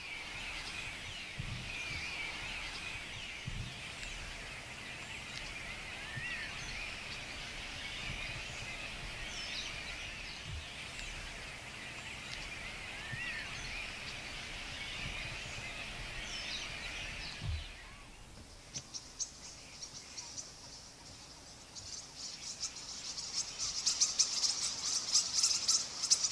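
Dusk lakeside ambience: a dense chorus of small birds chirping, which cuts away after about 18 seconds to a fast, high-pitched ticking chirr that grows louder near the end.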